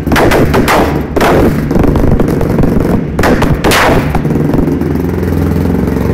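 450 engine running with an open, popping exhaust: it is blipped hard several times, each rev ending in loud, sharp exhaust cracks like backfires, with steady running between. Flames coming out of the exhaust go with these pops.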